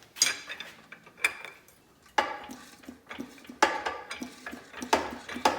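Metal tools clanking and striking against a stuck part of an air-cooled VW engine, about six sharp metallic knocks at irregular intervals of roughly a second, each ringing briefly, as the part is worked on without coming free.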